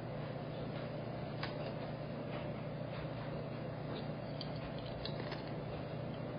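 Room tone: a steady low hum, with a few faint clicks scattered through it.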